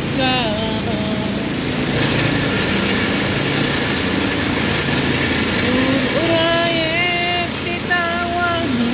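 Steady mechanical drone of a tunnel-ventilated broiler house, its ventilation fans running without pause. A singing voice is heard over it for about the first second and again from about six seconds in.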